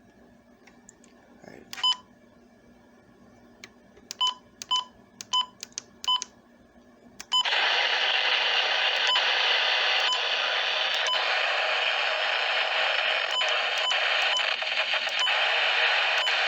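NOAA Weather Radio broadcast: faint hiss with a few short electronic beeps, then about seven seconds in the weather radio warning alarm tone comes on loud and holds steady.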